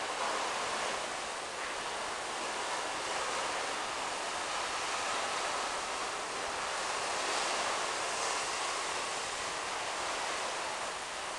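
Steady, even hiss with no distinct events, like rushing air or background noise.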